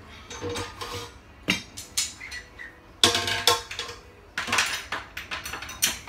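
Metal clinks and clanks as the steel leg and crossbar of a motorcycle carrier rack are handled and adjusted by hand: a string of sharp knocks, the loudest about three seconds in.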